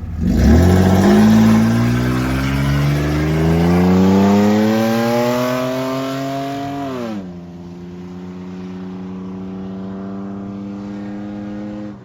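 A 4x4 drag vehicle's engine launching hard, its revs climbing steadily for about seven seconds, then falling off suddenly as the throttle is lifted and settling to a steady lower drone.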